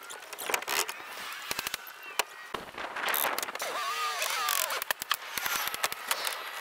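A dense, irregular run of sharp knocks and clicks from work on plywood roof sheathing, with a brief high squeaky warbling sound about two-thirds of the way through.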